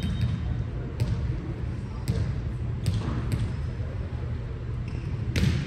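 A volleyball being played: about five sharp smacks of the ball, spaced irregularly, the loudest near the end, over a steady murmur of crowd voices.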